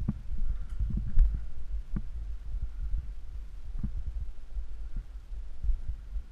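Handling and movement noise from a player on the move: irregular low thuds over a steady rumble, with a few sharper knocks, the loudest about a second in.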